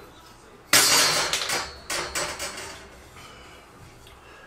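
Metallic clatter of a steel rule let go from its bend and set down on the workbench, dying away over about a second, followed by a few lighter knocks as the board is handled.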